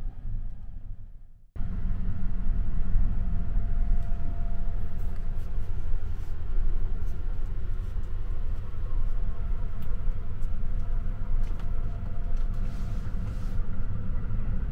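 Steady low rumble of the Sunrise Express sleeper train running, heard inside a compartment. It fades out over the first second and a half, comes back abruptly, then carries on evenly with a faint steady hum and a few light clicks.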